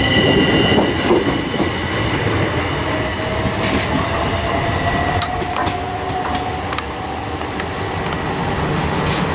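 Southern class 377 Electrostar electric train passing close by and pulling away: wheel and rail noise with a brief squeal, then clicks over the rail joints and a whine slowly rising in pitch as it draws off.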